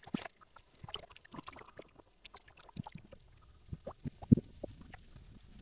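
Shallow seawater sloshing and splashing close to the microphone in irregular small splashes and knocks, with a sharper one a little after four seconds in.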